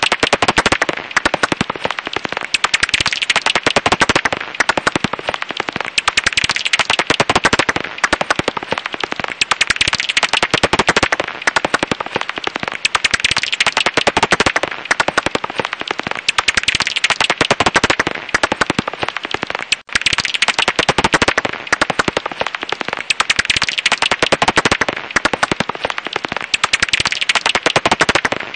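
Japanese house bat (Japanese pipistrelle, Pipistrellus abramus) calls, heard as a dense, very rapid clicking and crackling that swells and fades in waves every couple of seconds, with a brief break about two-thirds of the way through.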